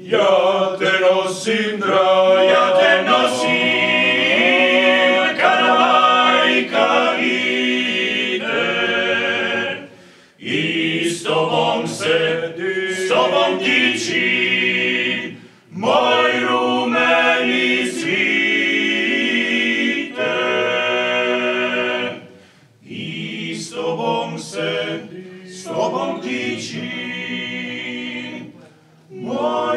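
Klapa singing: a small Croatian a cappella vocal group singing in multi-part harmony, in phrases broken by brief pauses.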